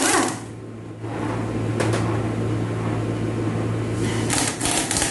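Steady mechanical hum of a running machine, with a few light clicks about two seconds in and a short clatter of clicks just after four seconds.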